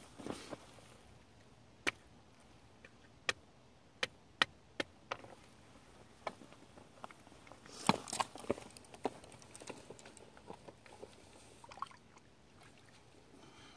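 Small waves lapping against shoreline rocks: scattered soft plops and clicks, with a brief cluster of louder splashes about eight seconds in.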